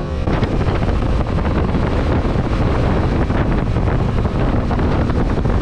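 Wind noise on the microphone of a moving Yamaha Tracer 7 motorcycle, steady and loud, with the bike's engine and road noise underneath.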